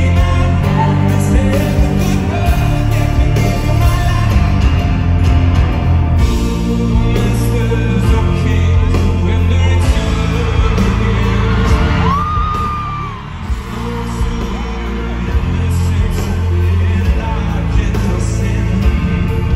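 Live band music with a male lead singer, recorded from the audience over the PA, heavy in the bass. The music drops back briefly a little past halfway, then comes back in.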